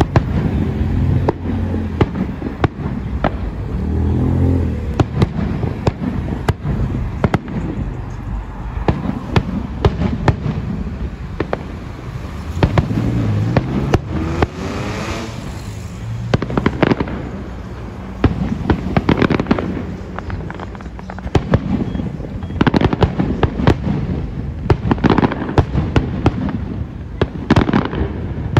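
Fireworks display: aerial shells bursting one after another with bangs and crackle, the bursts coming thickest in the last several seconds.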